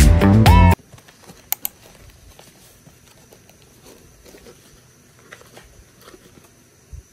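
Background music cuts off under a second in. Then comes faint handling of cardboard parcels on a tabletop: small taps and rustles, two sharp clicks early on, and a soft thump near the end.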